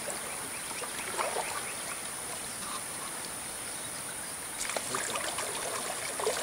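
River ambience: water trickling, with a steady high hiss behind it. A few light splashes of kayak paddles come through, a cluster of them about five seconds in.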